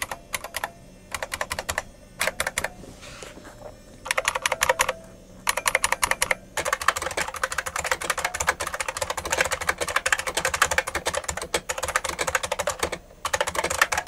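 Typing on a 1992 IBM Model M keyboard: its buckling-spring key switches clicking in fast runs broken by a few short pauses. The board has just been bolt-modded in place of its broken plastic rivets, which tightens it and takes the rattle out of the spacebar.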